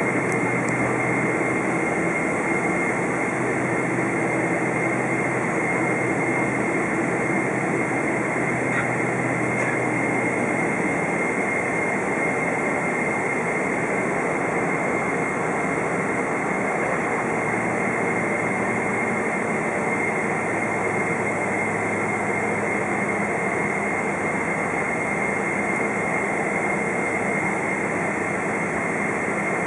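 Boeing 777-200's jet engines at taxi power heard from inside the cabin: a steady, even rush of engine and air noise with a constant high whine.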